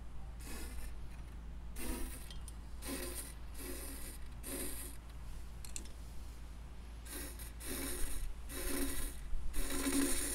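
Aerosol spray-paint can discharging through a thin tube into a chrome exhaust header pipe in about seven short hissing bursts, coating the inside of the pipe with paint.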